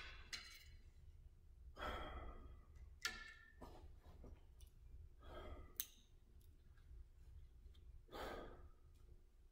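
A person breathing slowly and audibly, a soft breath about every three seconds, with a few faint clicks in between.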